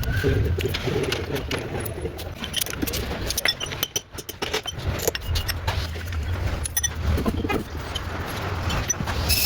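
Car running on the road: a steady low hum from the engine and tyres, with scattered light clicks and rattles.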